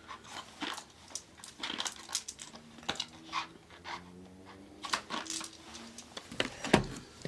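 9mm cartridges and a Glock 43 magazine being handled, a scatter of light metallic clicks and clinks with a louder click near the end.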